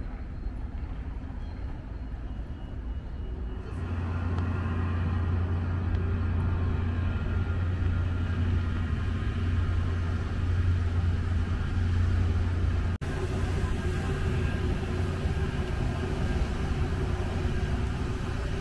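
A large engine running steadily, a low hum with steady tones above it, starting about four seconds in over general street noise; the sound drops out for an instant about thirteen seconds in.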